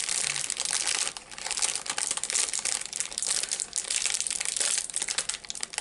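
Plastic snack bag crinkling and crackling steadily as it is handled and worked open by hand.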